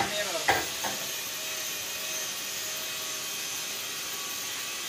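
Steady hiss of workshop background noise, with one sharp knock about half a second in and a brief bit of voice at the start.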